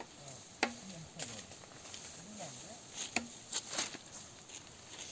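Voices of people talking at a distance, broken by a few sharp dry cracks and crackles of dry palm fronds being handled and snapped, the loudest crack about half a second in.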